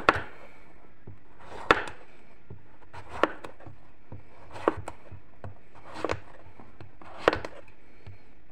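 Kitchen knife slicing a zucchini into thick rounds, each cut ending in a sharp knock of the blade on a wooden cutting board, six times at an even pace of about one every second and a half.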